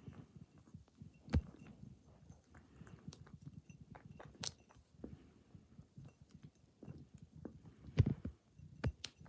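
Rabbit eating dry food mix from a bowl: a quick patter of small crunches as it chews, with a few louder clicks or knocks among them.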